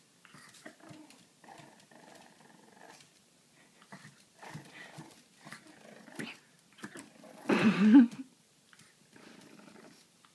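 French bulldog puppy growling and grunting softly at his own reflection in a mirror. About seven and a half seconds in there is one loud, short bark.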